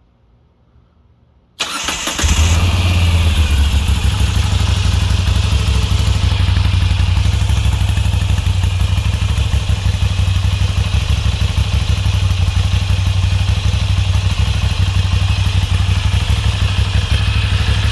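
Moto Guzzi air-cooled transverse V-twin motorcycle started on the electric starter, catching about two seconds in and then idling with a steady, loud, low pulsing exhaust note.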